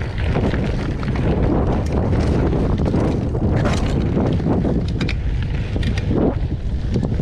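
Wind rumbling over the microphone while a mountain bike rides over rough trail, with many short rattling clicks and knocks from the bike.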